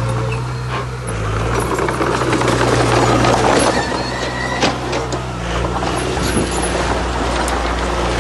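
Heavy diesel earthmoving machinery running, its engine note shifting a little twice, with rough grinding and clattering of stone that is loudest in the middle few seconds.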